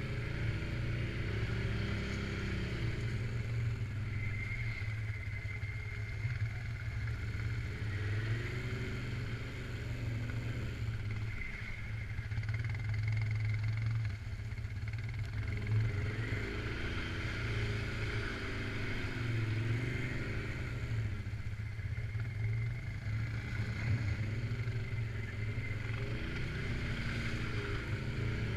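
Suzuki KingQuad 750 AXi's single-cylinder four-stroke engine running while riding, its pitch rising and falling again and again with the throttle.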